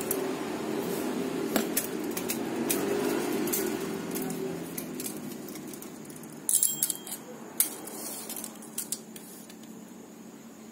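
Scattered light metallic clinks and taps of a steel concrete hole saw on its arbor and a steel tape measure being handled and set on a concrete floor, with a quick cluster of clinks about six and a half seconds in. Underneath runs a low steady background hum that fades after about four seconds.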